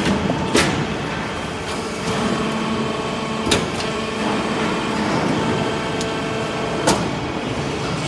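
Hydraulic steel-chip briquetting press running: a steady hum from its hydraulic power unit, broken by a sharp clack three times, about every three and a half seconds, as the press cycles.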